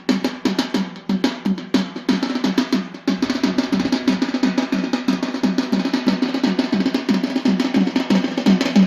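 Drums beating a fast, steady rhythm for the Yemeni bara'a dance. About three seconds in, the beat turns denser and busier.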